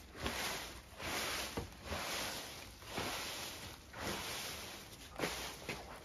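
Broom sweeping a hard floor: a steady run of long swishing strokes, about one a second.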